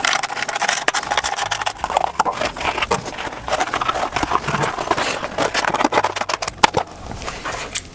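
Skateboard grip tape being cut to size: a run of scratchy rasping and many quick irregular clicks as the blade works through the gritty sheet.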